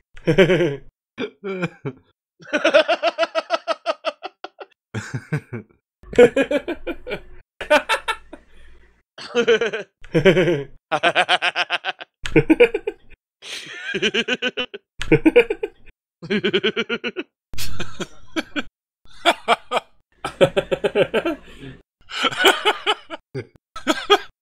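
Recorded laughs played one after another with short gaps: a long string of separate bursts of laughing, each a run of quick 'ha-ha' pulses, some high-pitched and some deep.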